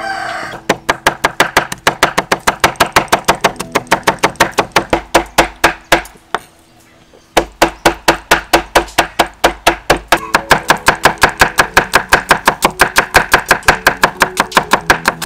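Large kitchen knife chopping red chillies and shallots on a thick round wooden chopping board: a quick, even run of sharp knocks, about five strikes a second. The chopping stops for about a second around six seconds in, then starts again.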